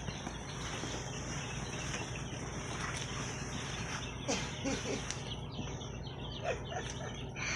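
Day-old chicks peeping in short, scattered cheeps over a steady low background hum.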